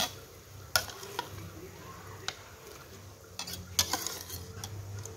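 A utensil clicking against a metal cooking pot a handful of times, most often near the end, as minced pork is added to boiling water. A low steady hum runs underneath.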